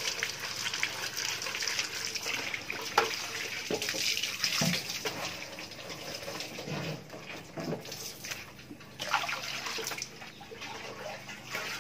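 Hose water running through a plastic-bottle water filter and splashing onto a concrete floor and into a plastic dipper as the filter is rinsed. The splashing is steadier in the first half and thins out in the second, with a few light knocks.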